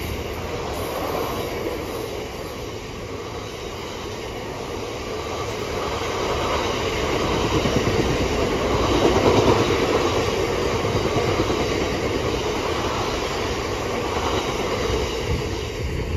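Cement tank wagons of a freight train rolling through on the rails: a steady rumble and clatter of wheels on track that swells about halfway through and eases off near the end as the last wagons clear.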